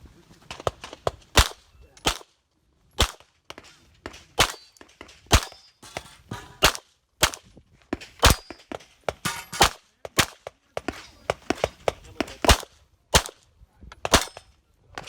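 A 9mm pistol fired in rapid strings of sharp cracks, many of them in quick pairs, with short pauses between strings. This is an IPSC course of fire, with pauses for moving and reloading between target arrays.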